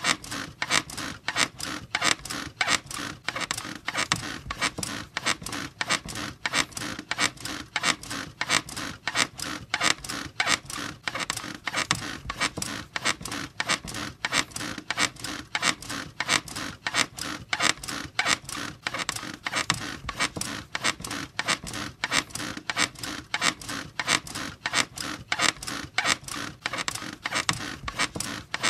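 Bed squeaking in a fast, even rhythm, several creaks a second at a steady pace, as if someone were bouncing on it.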